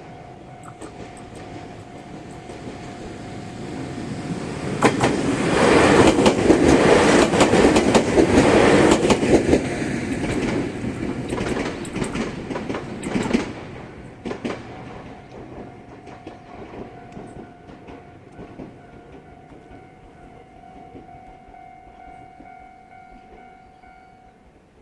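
Two-car Ryutetsu 5000-series electric train passing over a level crossing, loudest about six to ten seconds in, with a run of rail-joint clicks. It passes about thirteen seconds in. A level-crossing warning bell rings before and after the train and stops near the end.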